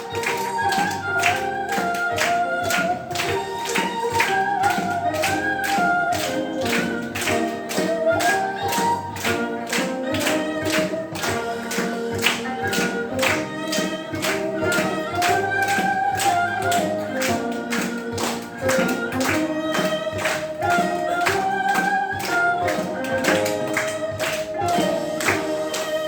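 Fusion gugak band playing an instrumental passage: a wavering melody line over a steady percussion beat.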